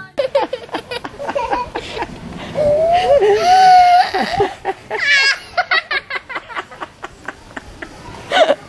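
A young girl laughing hard in repeated bursts, with a longer drawn-out laugh about three seconds in.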